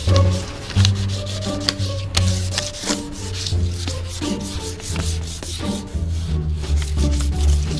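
Fine 2000-grit sandpaper rubbed by hand over a motorcycle's plastic headlight lens in quick back-and-forth strokes, sanding off the hazy surface. Background music with a steady bass line plays under it.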